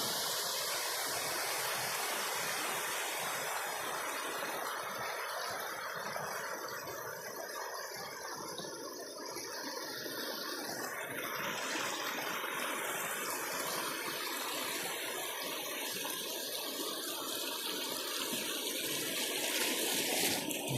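Natural waterfall, water rushing and splashing in a steady hiss.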